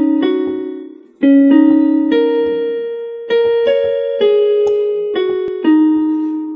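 Short piano-like keyboard jingle: a simple melody of single struck notes, each ringing and fading. It dies away briefly about a second in, then carries on with a phrase that steps down in pitch and rings out at the end.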